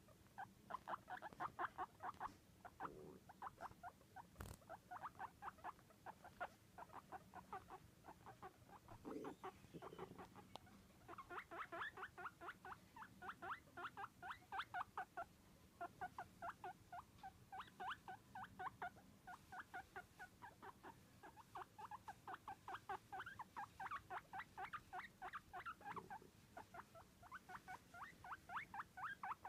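Guinea pig chutting while exploring: long runs of quick, short squeaky pulses, many a second, broken by brief pauses. One sharp click about four and a half seconds in.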